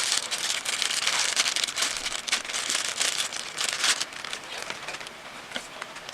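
Plastic packaging crinkling and rustling as the contents of the laptop box, including the charger, are taken out; busy for about four seconds, then fainter near the end.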